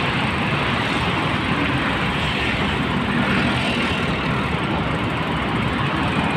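Steady rushing noise of street traffic and wind heard from a bicycle moving along a road, with no single sound standing out.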